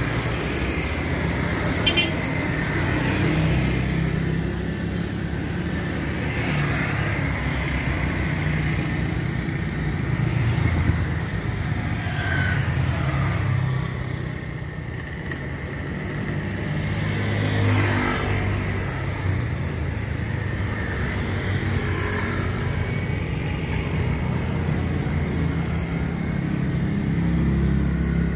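Airbus A320-232's IAE V2500 jet engines at takeoff thrust during the takeoff roll: a steady loud rumbling roar that eases briefly about halfway through and then builds again.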